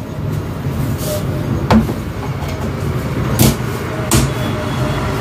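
Plastic paint tins and their lids being handled and set down on a counter: three sharp knocks among a few smaller clatters, over a steady low rumble.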